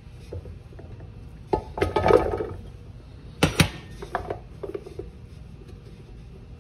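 Kitchenware clattering as potatoes are drained: a clattery rattle about one and a half seconds in, then two sharp knocks about three and a half seconds in, and a few lighter clinks.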